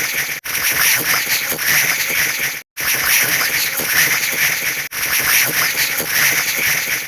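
Rapid-fire synthetic sound effects piled into a dense crackling clatter of fast overlapping ticks. It breaks off in short silent gaps about every two seconds.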